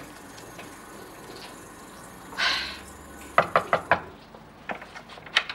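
A quick series of about five knuckle knocks on an interior door, about three and a half seconds in, preceded by a short rustle and followed by a few lighter knocks or clicks near the end.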